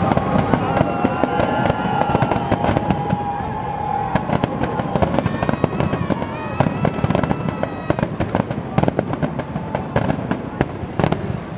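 Big fireworks display: a dense run of bangs and crackling shell bursts, with high whistling tones held over the first few seconds and wavering through the middle.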